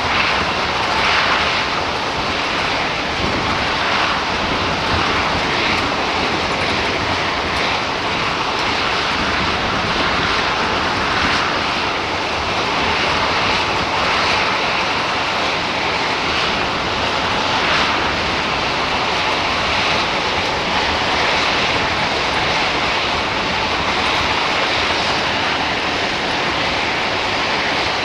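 Steady, noisy roar of a rock-loading plant as a train of hopper wagons creeps under the loading conveyors, with a few brief swells of rushing noise.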